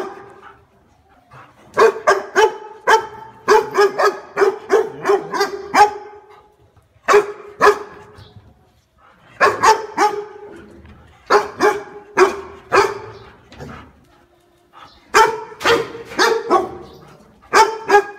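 A dog barking in quick runs of several barks, with pauses of about a second between the runs.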